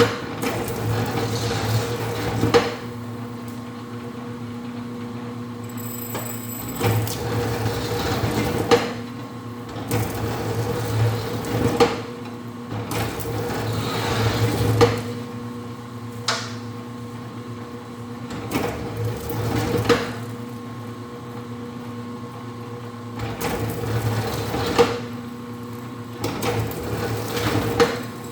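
Four-roller electric copper wire stripping machine running with a steady motor hum while insulated wire is fed through it. A sharp knock sounds every couple of seconds, and a second tone comes and goes.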